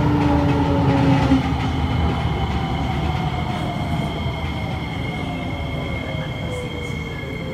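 SMRT C151C metro train heard from inside the carriage as it slows into a station: the traction motor whine falls steadily in pitch over a rolling rumble, and the sound grows gradually quieter. A thin, steady high squeal comes in about two seconds in.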